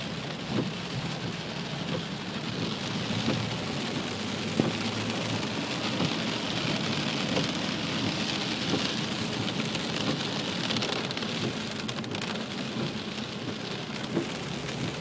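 Heavy rain falling steadily, a continuous hiss over a low rumble, with scattered small knocks.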